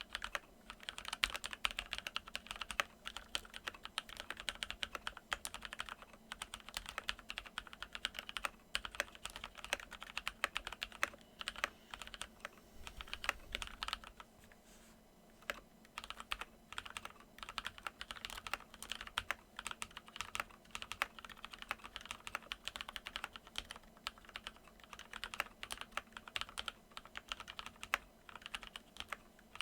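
Typing on a Keychron K8 mechanical keyboard modded with lubed Kailh Silver Speed linear switches, switch films and foam in the case: quick irregular key presses in bursts, with a short pause about halfway through.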